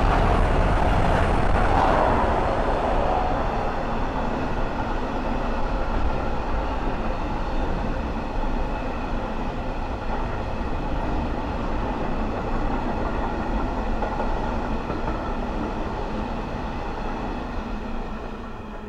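Freight train headed by a Class 66 diesel locomotive passing, its wagons rolling by with a steady rumble and wheel-on-rail noise. It is loudest in the first two seconds and slowly fades toward the end.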